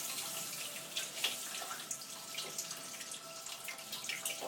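Water running and splashing in a trickle with small spatters and drips, the flow slowing.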